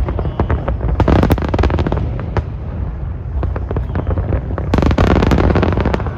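Aerial fireworks bursting overhead: a continuous low rumble of booms with many sharp cracks and crackles, densest about a second in and again near the end.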